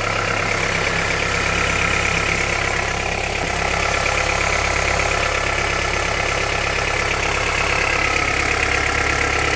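Honda CR-V's 2.4-litre four-cylinder petrol engine idling steadily, heard up close, with a fast knocking clatter. The owner says it sounds like the engine is running without oil; some have told him it is the pistons knocking.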